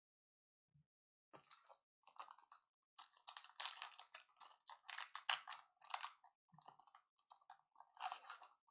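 Faint rustling and clicking of trading cards being handled and slid through the hands, with some crinkle of pack wrapper, in a quick irregular run starting about a second and a half in.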